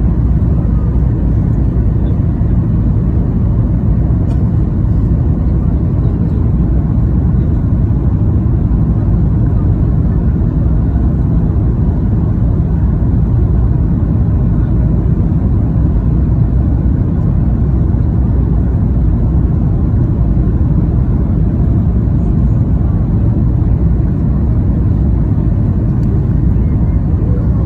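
Steady, loud rumble of a passenger airliner's engines and airflow heard from inside the cabin, even throughout with no distinct thumps.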